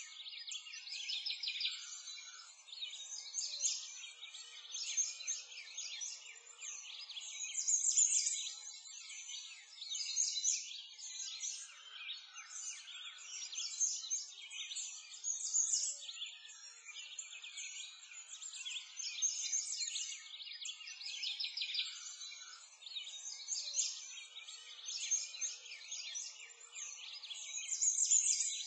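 Birdsong: a dense chorus of many small birds chirping and twittering, steady throughout with gentle swells in loudness.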